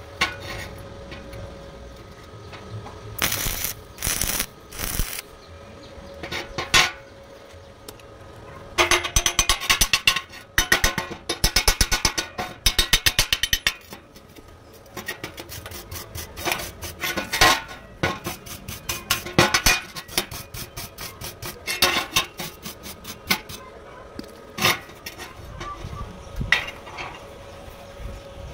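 Metal tapping and clinking: a hammer knocking the slag off a fresh stick weld on steel angle iron. The strikes are scattered at first, with runs of rapid strikes in the middle.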